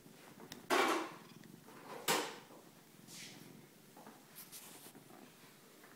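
Domestic cat purring steadily, with two loud short rustles, one just under a second in and one about two seconds in.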